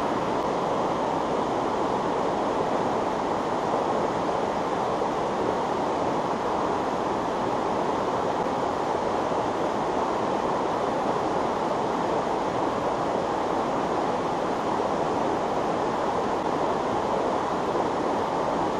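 Steady rushing of a mountain stream, water pouring over a small cascade into a pool.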